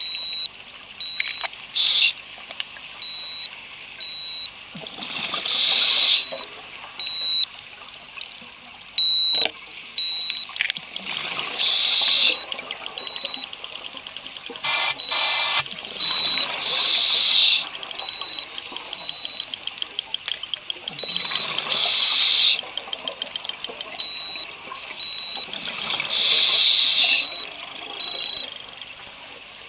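Scuba diver breathing underwater through a regulator: a loud rush of exhaled bubbles about every four to five seconds. Behind it runs a steady high electronic beep about twice a second, and stretches of rapid clicking come between the breaths.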